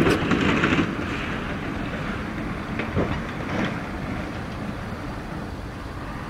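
Heavy rumble of a Swift semi-truck sliding sideways on an icy highway, loudest in the first second as the slide ends, then a steadier low rumble with two brief knocks about three seconds in.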